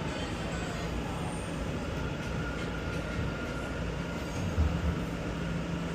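New York City subway C train running, heard from inside the car: a steady rumble of wheels on track with a faint constant hum. A brief low thump comes about four and a half seconds in.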